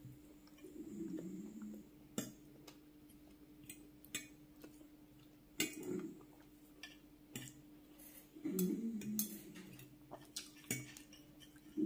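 A metal fork clinking and scraping against a glass bowl of rice and curry, in sharp single clicks every second or two.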